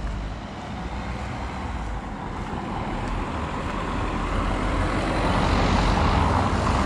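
A road vehicle approaching along the street, its engine rumble and tyre noise growing steadily louder.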